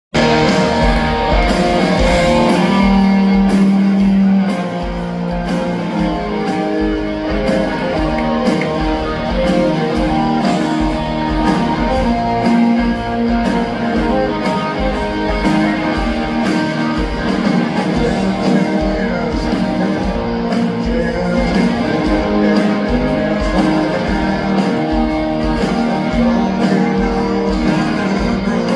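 Live rock band, with electric guitars, bass and drums, playing a steady mid-tempo song, recorded from the audience in a concert hall.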